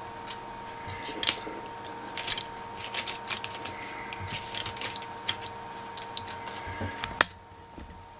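Scattered light clicks and taps of small parts being handled, over a faint steady electrical whine. The whine stops with a sharp click about seven seconds in.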